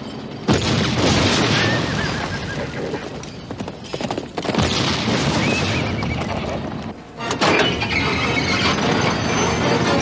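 Battle sound effects from a film soundtrack: three sudden explosions, about half a second, four and a half and seven and a half seconds in, each trailing off in a long rumble, mixed with horses whinnying.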